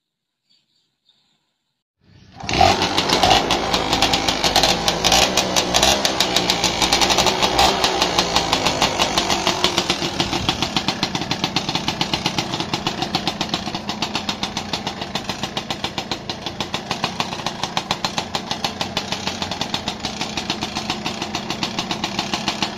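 Motorcycle engine running, coming in suddenly about two seconds in, with a rapid ticking knock: the sound the mechanic puts down to a worn piston and connecting rod.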